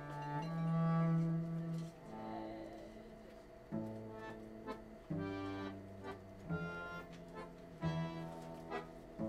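Cello and accordion playing together: held accordion chords over a bowed cello line of slow, sustained low notes, with a new cello note starting about every second and a half after a long loud note at the start.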